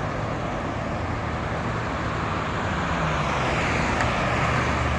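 Road traffic: motor vehicles running past, a steady rush of tyre and engine noise with a low hum that grows slightly louder toward the end. A short click about four seconds in.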